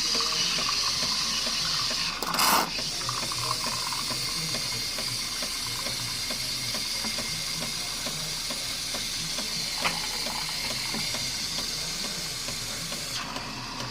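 Jura F90 coffee machine's steam milk system frothing milk through its milk nozzle: a steady hiss, with a short louder rush about two and a half seconds in. The high part of the hiss falls away shortly before the end.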